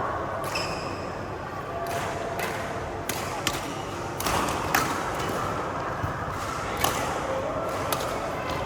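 Badminton rackets hitting a shuttlecock in a rally: a string of sharp hits at uneven intervals, about one every half second to a second, over steady background noise.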